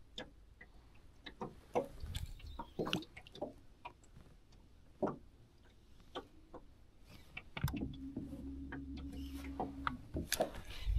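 Electric trolling motor running with a steady hum for about two seconds, starting a little past halfway and cutting off near the end. Scattered small clicks and knocks from handling tackle in the boat run through.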